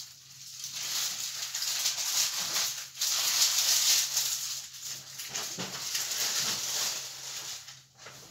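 Cardboard and plastic packaging rustling and tearing as a box is opened along its easy-open strip.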